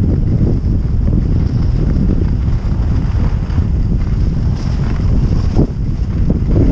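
Wind buffeting the microphone of a camera carried by a downhill skier, a steady low rumble, with the hiss of skis sliding over packed snow.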